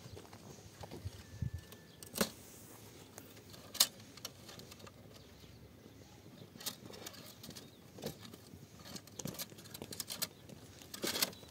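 Scattered sharp clicks and rustles of a coil of black plastic hose being handled while the ties binding it are undone; the loudest click comes about four seconds in.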